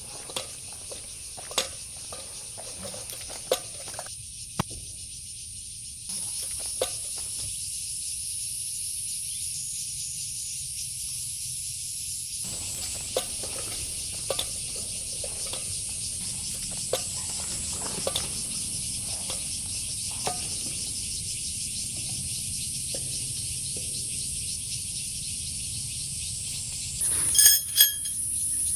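Night insects chirring in a steady, high-pitched chorus, with scattered light clicks. A short, loud, high-pitched sound with several tones comes near the end.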